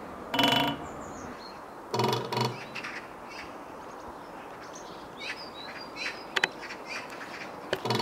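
Great spotted woodpecker drumming on a metal TV antenna: short, very fast rolls of about half a second each, the metal ringing with a pitched tone. A roll comes about half a second in, two in quick succession around two seconds, and another at the very end.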